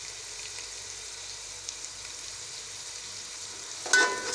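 Shredded chicken with onion and tomato frying in oil in a pan: a steady sizzle. Near the end a metal slotted spoon strikes the pan with a sharp ringing clank as stirring starts.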